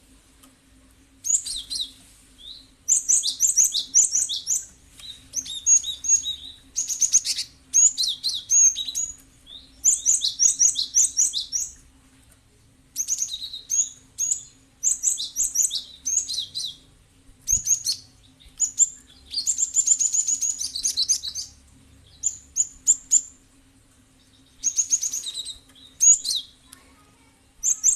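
Cinereous tit (gelatik batu) singing: rapid, chattering high phrases of one to two seconds each, repeated with short pauses. A faint steady hum runs underneath.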